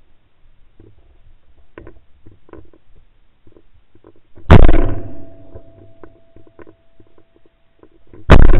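Two shotgun shots from a Beretta 687 over-and-under, fired at clay targets about four seconds apart, each very loud with a short echoing tail. Faint handling clicks come before and between them.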